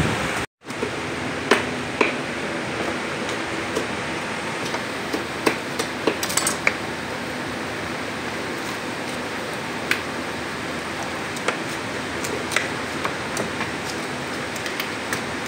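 Irregular knocks and clicks of knives cutting raw chicken on a wooden chopping block, over a steady background hiss.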